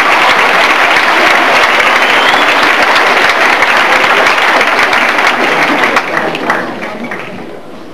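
Audience applause, loud and sustained, then dying away about six to seven seconds in.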